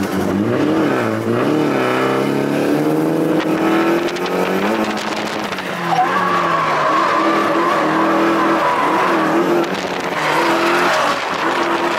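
Nissan 180SX's turbocharged four-cylinder engine revving up and down hard while drifting, heard from inside the cabin. About halfway through, the tyres squeal steadily for a few seconds.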